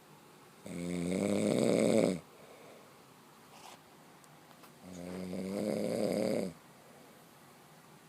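A sleeper snoring: two long snores about four seconds apart, each growing louder for about a second and a half and then stopping abruptly.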